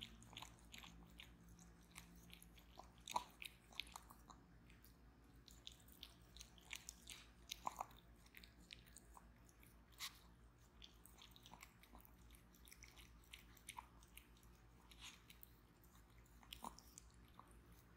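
Yorkshire terrier lapping milk from a glass dish: faint, irregular wet tongue clicks and smacks.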